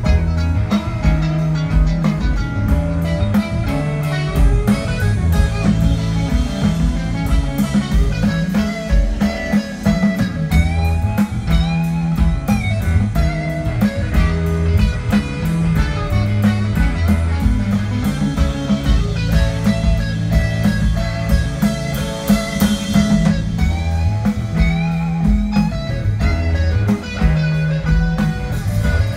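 Live rock band playing: electric guitar over bass guitar and drum kit, with steady cymbal hits.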